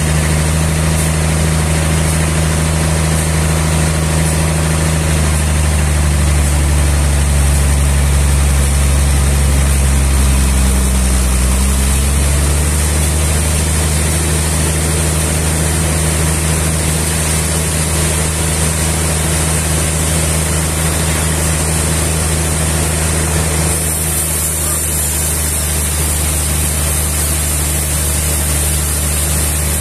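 A large engine running steadily. Its pitch sags for several seconds about a third of the way in, then settles back to an even speed.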